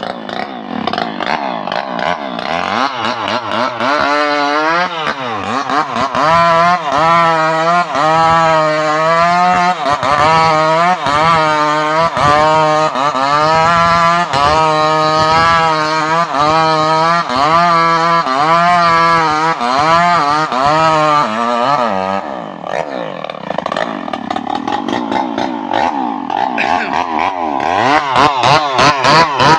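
Stihl MS381 two-stroke chainsaw revving up and then cutting at high revs, its pitch wavering regularly as the chain bites into the wood. About two-thirds of the way through the revs drop away, then climb again in uneven bursts.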